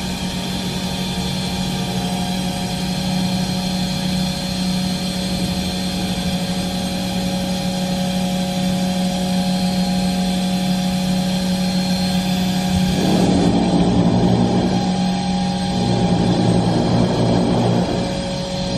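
Industrial machine running with a steady low hum and several steady tones above it. About thirteen seconds in, a louder rushing noise starts, drops away briefly, then comes back for a few more seconds.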